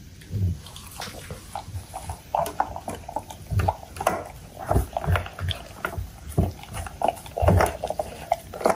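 Labrador retriever eating vegetable puree from a stainless steel bowl: irregular wet licking, lapping and chewing sounds with small clicks and soft knocks.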